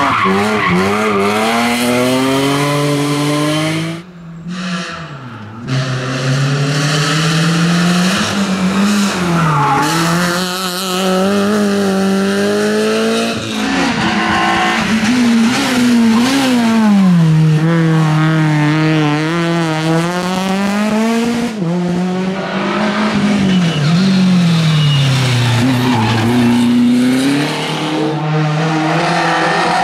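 Rally cars racing up a mountain hill climb, one after another, their engines revving hard and dropping again through gear changes as they accelerate out of and brake into corners.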